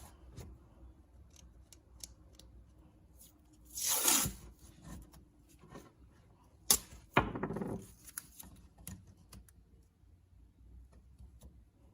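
Paper being cut with scissors: scattered small snips and clicks, with two louder rasping swishes of paper about four and seven seconds in.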